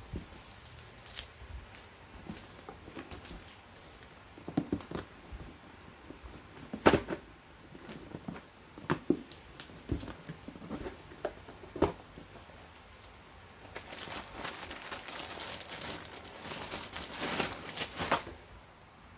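Cardboard puzzle box being handled, with a series of sharp taps and knocks. In the second half comes a few seconds of plastic wrapping crinkling.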